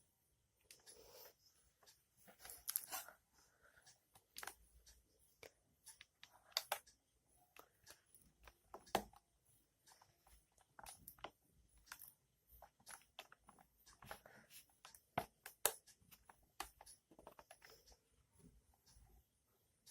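Faint, irregular clicks, taps and crinkles of handling, typical of unpacking and handling a device and its packaging.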